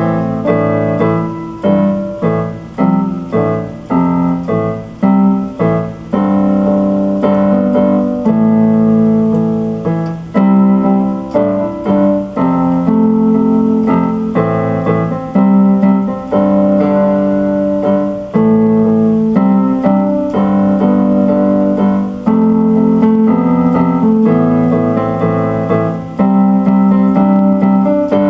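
Electronic keyboard played with a piano sound: an instrumental piece of chords, with short repeated stabs in the first few seconds and then longer held chords.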